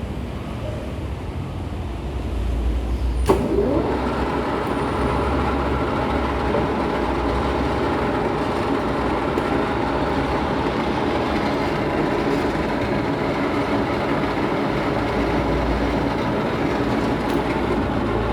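Geared headstock of a C6232A1 metal lathe running unloaded on test, with a steady mechanical gear-train drone. A sharp click about three seconds in, after which it runs a little louder with a steady gear whine.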